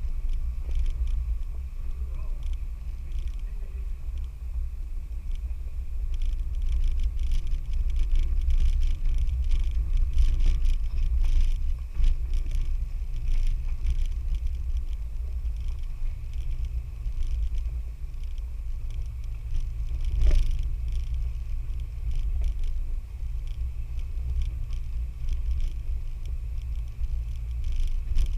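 Off-road 4x4 driving on a rough trail: a steady low engine rumble with scattered knocks and rattles, and one sharper knock about twenty seconds in.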